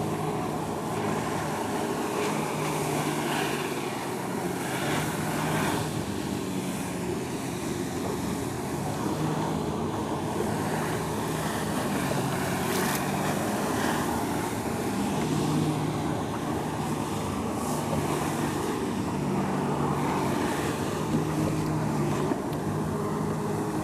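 Personal watercraft engine running steadily, pumping water up a hose to a Jetovator water-jet bike, with a broad hiss from the jets. The engine note shifts a little now and then.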